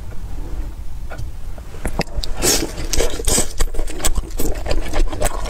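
Close-miked eating of king crab leg meat: wet mouth sounds, chewing and slurping with small clicks. These start about two seconds in, after a quieter stretch.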